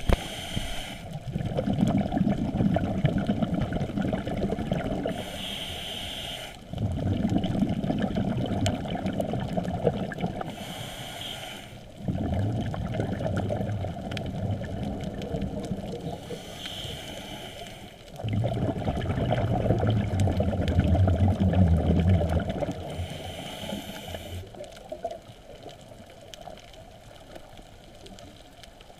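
Scuba diver breathing through a regulator underwater: a short hiss of inhalation, then a longer rumbling burst of exhaled bubbles, repeating about every six seconds. After the last breath, near the end, only a faint bubbling hiss remains.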